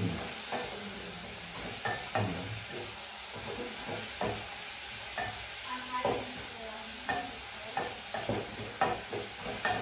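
Cabbage frying in hot oil with onions in a pan, a steady sizzle under irregular scrapes and knocks of a utensil stirring it.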